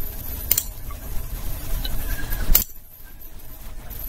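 Two computer mouse clicks about two seconds apart, over a low rumble that drops away at the second, louder click.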